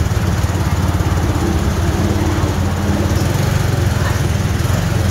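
A small engine running steadily with a low rumble.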